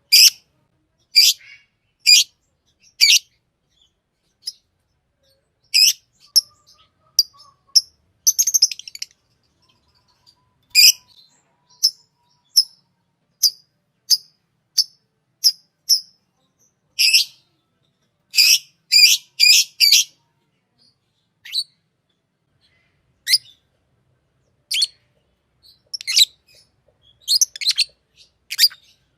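Green Fischer's lovebird chirping: short, sharp, high-pitched calls, some single and some in quick runs of three or four, with brief silences between them.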